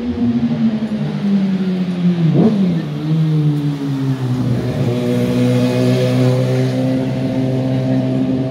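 A motor vehicle engine running loud, with a quick rev up and back down about two and a half seconds in, then holding a steady note.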